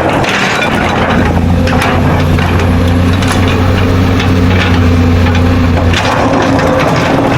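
Excavator's diesel engine running steadily under load, with irregular crunching and cracking of material being dug or scraped.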